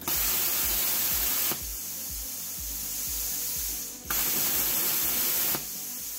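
Plasma cutter torch firing its pilot arc in the air twice, each firing a loud hiss lasting about a second and a half. Between and after the firings comes a quieter hiss of compressed air blowing through the torch head to cool it.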